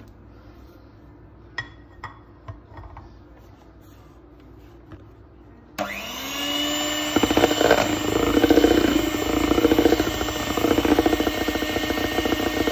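A few light knocks, then about six seconds in an electric hand mixer starts up. Its motor whine rises to a steady pitch, and a second later the beaters churn loudly through runny cake batter.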